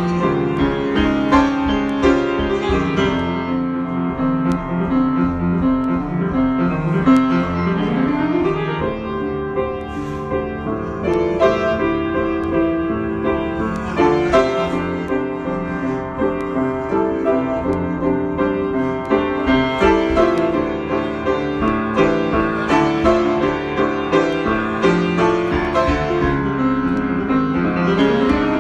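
Piano playing an improvised piece, with a steady flow of chords and melody notes.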